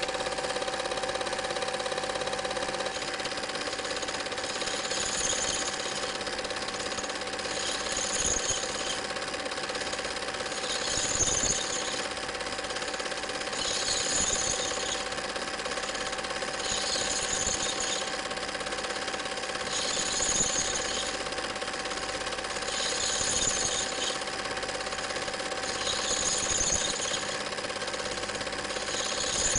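Steady mechanical whirr and clatter of a running film projector, with a steady hum and a brief hissing swell about every three seconds.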